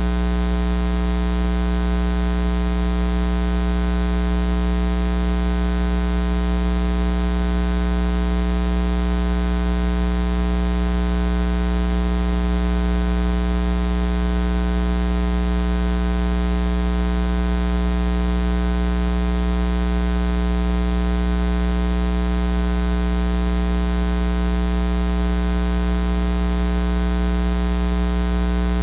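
Loud, steady electrical mains hum: a low drone with an even, buzzing stack of overtones, holding at one level with no other sound over it.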